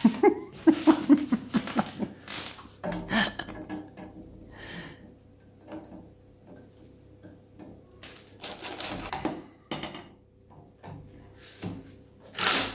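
Short bursts of a cordless Ingersoll Rand driver driving screws into the wall, among clicks and knocks from handling the metal clock bracket. The loudest burst comes near the end.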